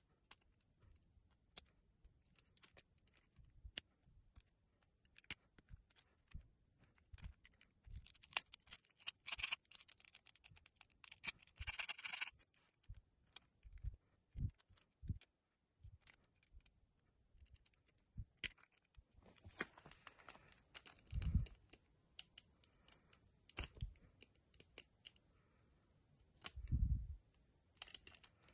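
Faint clicks, scrapes and rustles of a plastic trigger-spray pump head being handled and prised apart, with a thin metal pick scraping inside it. Two dull knocks come in the second half.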